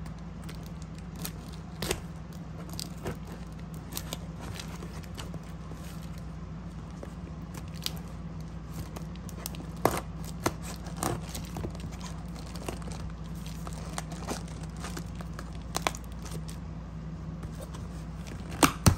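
Scissors cutting through clear packing tape along the seam of a cardboard box: scattered crackles, tearing and scrapes of tape and cardboard as the box is handled, with a few sharper clicks near the end. A steady low hum runs underneath.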